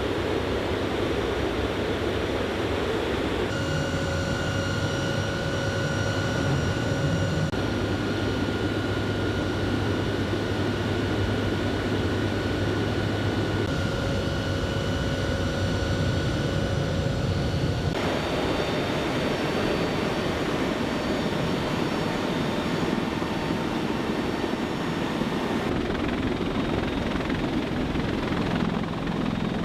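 Steady aircraft turbine engine noise with a high whine. The whine's tones start and stop abruptly a few times, about 4, 8, 14 and 18 seconds in.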